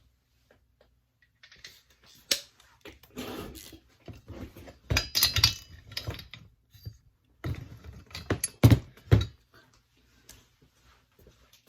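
Metal hand tools clattering and clinking as they are picked up and handled, in irregular clusters, the loudest a few sharp knocks about eight to nine seconds in.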